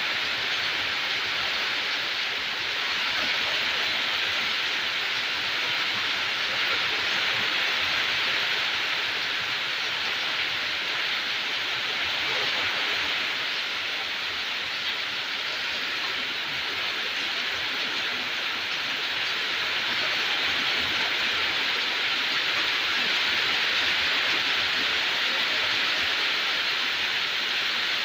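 Steady rain sound: an even hiss with no separate drops or knocks standing out, strongest in the upper middle of the range.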